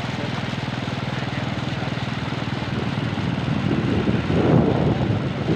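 Small motorcycle engine running steadily at an even speed while the bike rides through shallow floodwater, with a steady hiss underneath.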